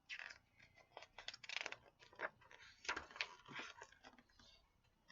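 Paper pages of a picture book being handled and turned: a quick run of faint rustles and crinkles that stops about four and a half seconds in.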